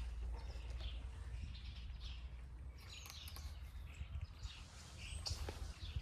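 Small birds chirping now and then, short high chirps over a low steady background rumble.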